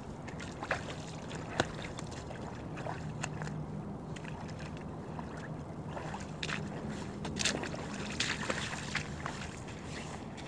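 A steady low hum runs underneath, with scattered small clicks and, in the second half, footsteps and rustling clothing as an angler moves about on a sandy, stony riverbank.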